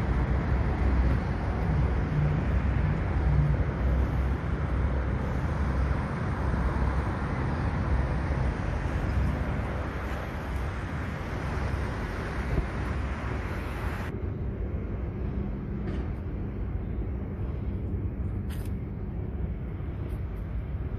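Steady low rumble of vehicle noise. About 14 s in, the higher hiss drops away abruptly and the lower rumble carries on.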